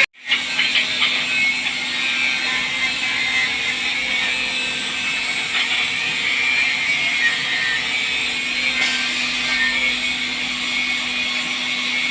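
Automatic wood lathe running steadily, its motor humming under the hiss of the cutter turning wood.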